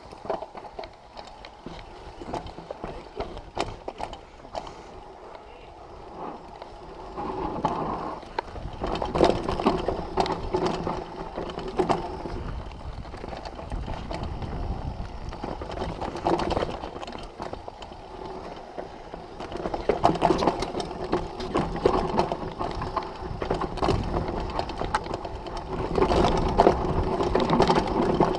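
Downhill mountain bike descending a dirt trail: the bike's chain and hub give rapid clicking and rattling over the bumps, with tyre noise on the dirt. It grows louder in stretches about a third of the way in and again through the last third.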